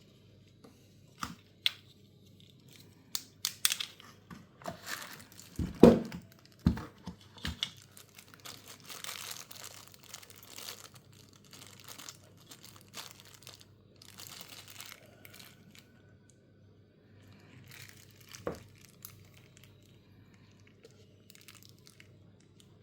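Handling noises in a small room: crinkling and tearing, with scattered knocks in the first several seconds, the loudest about six seconds in.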